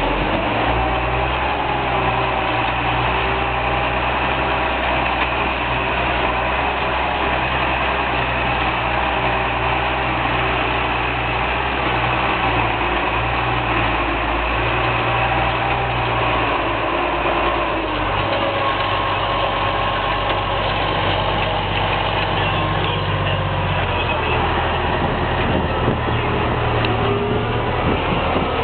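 Case IH 956 XL tractor's six-cylinder diesel engine running steadily under way, heard from the driver's seat close to the exhaust stack. The engine note changes slightly about eighteen seconds in.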